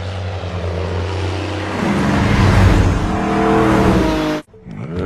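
Car engines running and revving, with the engine pitch rising over the second half; the sound cuts off abruptly near the end.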